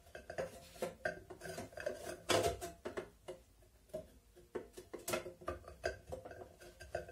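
Irregular metal clinks, knocks and scrapes of a bolt and a round steel shelf being worked inside an emptied steel fire-extinguisher body. The hollow shell rings briefly after the knocks, and the loudest knock comes a little over two seconds in.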